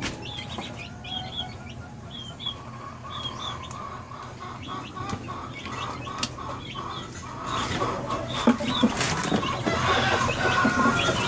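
A bird chirping over and over, about every half second to a second, and a chicken clucking in short runs from about two seconds in. A few knocks and rustles near the end.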